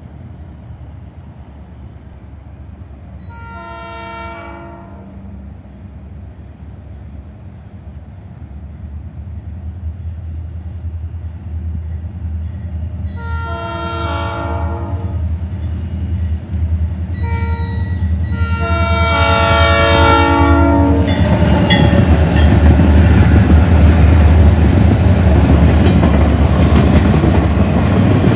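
Nathan Airchime P3 horn on an RJ Corman EMD SD40 diesel locomotive sounding the long, long, short, long grade-crossing signal, each blast a multi-note chord, growing louder as the train approaches. After the last long blast the locomotives pass close by, loud diesel engine rumble and wheel-on-rail noise.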